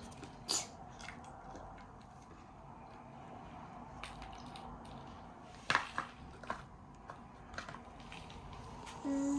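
Scattered light clicks and soft crunching as plastic toy trucks are handled and pushed through fake snow, the loudest click about half a second in and a cluster around six seconds in. Near the end a voice begins humming one steady note.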